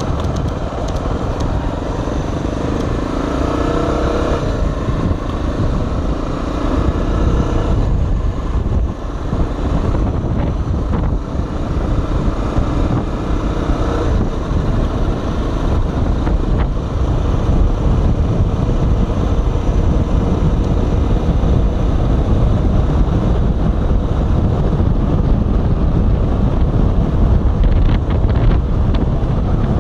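Honda XR 250 Tornado's single-cylinder four-stroke engine running under way, rising in pitch as the bike accelerates in the first few seconds. After that a low rush of wind buffeting the microphone grows over the engine as the bike cruises.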